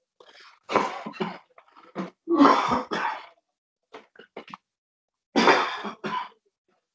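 A person coughing and clearing their throat over a video-call microphone, in three short fits of harsh coughs with a few smaller sounds between them.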